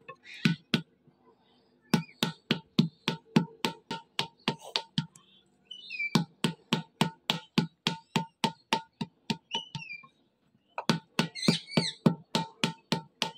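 A flat wooden paddle beats a large clay pot in the traditional paddle-and-anvil shaping. It strikes in a steady rhythm of about three to four a second, with short pauses about a second in and about ten seconds in. Birds chirp briefly now and then over the strikes.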